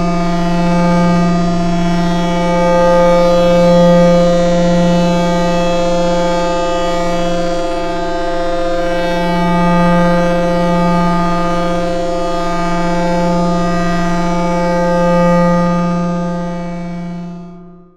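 Electric power hum: a steady, buzzing electrical drone with many overtones at an unchanging pitch, swelling gently in loudness, fading out at the end.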